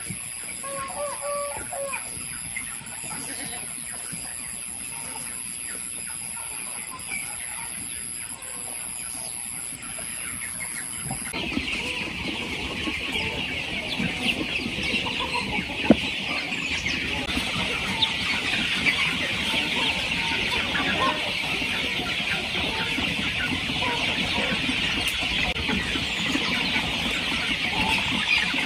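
A flock of young chickens clucking and cheeping, loud and continuous from about eleven seconds in. Before that there is a quieter outdoor background with a steady high whine and a few short calls.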